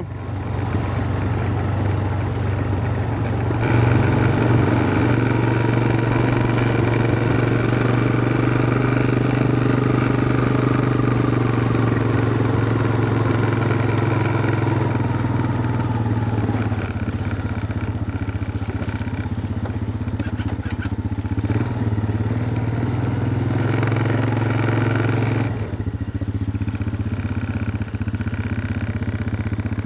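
Motor vehicle engine running steadily with a low hum. It grows louder a few seconds in and eases off near the end.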